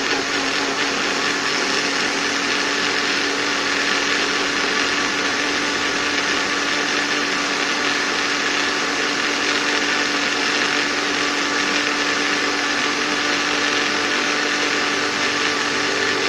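Electric kitchen blender running steadily at a constant pitch, blending chopped ginger and kencur root with water.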